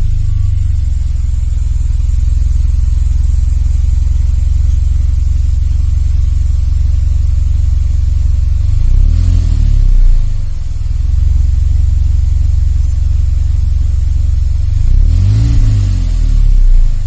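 2018 Hyundai Elantra Sport's 1.6-litre turbocharged four-cylinder on its stock exhaust, idling with a steady low note. It is blipped twice, briefly rising and falling in pitch, about nine seconds in and again about fifteen seconds in.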